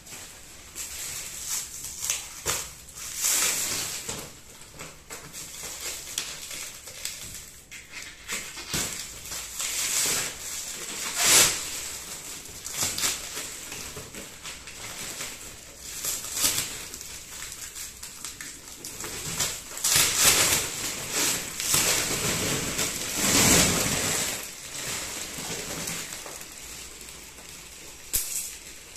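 Clear plastic wrapping film crinkling and rustling in irregular bursts as it is cut and pulled off a rolled mattress, with a louder, fuller rush of rustling a little past two-thirds through.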